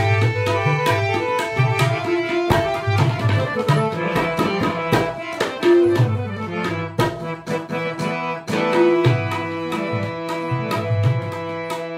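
Harmonium and tabla playing an instrumental passage without singing: the harmonium carries the melody with held reedy notes over a steady stream of tabla strokes and deep bass-drum notes.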